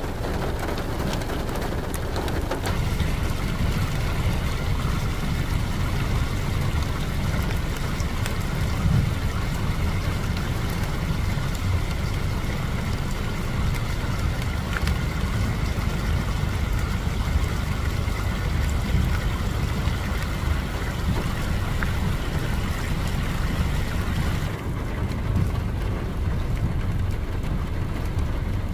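A car driving in rain, heard from inside: a steady low road-and-engine rumble with a lighter hiss of rain and wet tyres and scattered faint drop ticks. The higher hiss drops away about three-quarters of the way through.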